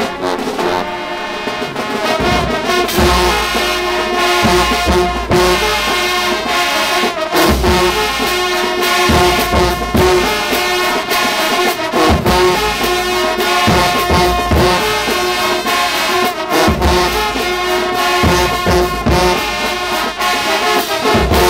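High school marching band playing in the stands: a massed brass section of sousaphones, trumpets and trombones, with saxophones, holding loud sustained chords over regular drum hits. The music stops suddenly at the very end.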